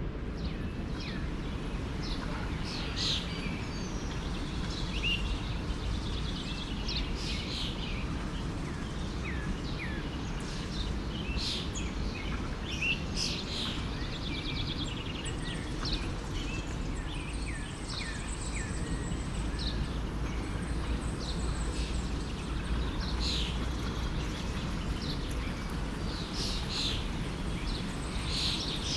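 A forest stream rushing steadily, with several songbirds chirping and whistling over it in many short calls, some of them quick falling whistles.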